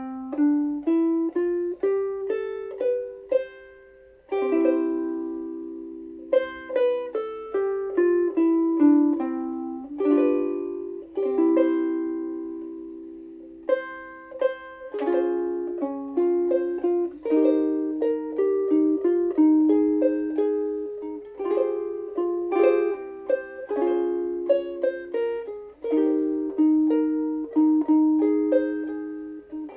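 Seilen SLVS-450s soprano ukulele, with a Sitka spruce top and Indian rosewood back and sides, played solo: plucked chords and single melody notes in a steady tune, each note ringing and fading.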